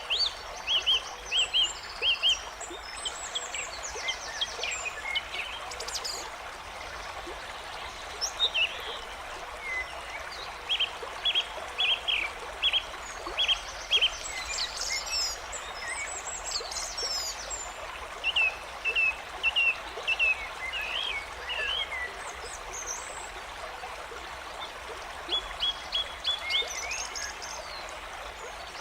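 A stream running steadily, with songbirds singing over it in repeated runs of short, sharp chirps and occasional higher trills.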